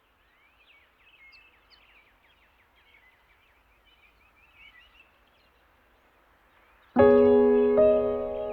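Faint birdsong chirping for about seven seconds, then background music starts suddenly near the end with sustained piano or keyboard chords, much louder than the birds.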